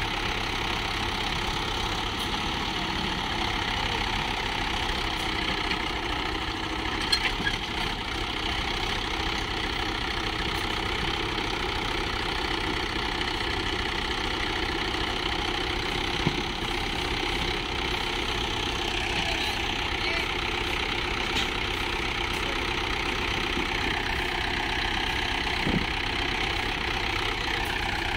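Swaraj tractor diesel engine running steadily under heavy load as it drags a loaded trolley through deep sand, with a short clatter about seven seconds in.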